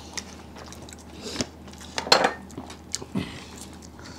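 Dishes and utensils being handled during a meal, with a few short clinks and clatters and some chewing.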